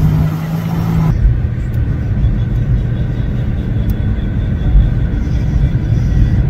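Car driving on a highway, heard from inside the cabin: steady road and engine noise. A low hum drops out about a second in, and an even rumble carries on.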